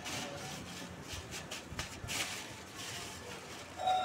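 Plastic bag being handled: irregular crinkling rustles and light clicks, with a short pitched squeak near the end.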